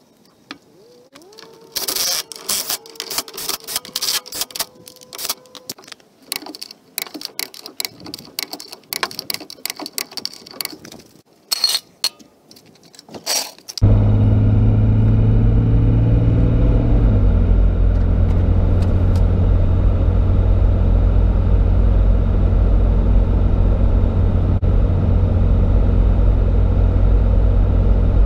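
Clicks and knocks of hand work at a pickup truck's wheel hub. Then comes the steady drone of a RAM 2500 pickup's engine and tyres at highway speed, heard from inside the cab, with its pitch dropping once a few seconds after it starts.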